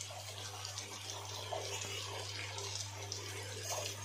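Hot sesame oil and chilli masala sizzling softly around whole hog plums in a frying pan, a steady, even crackle.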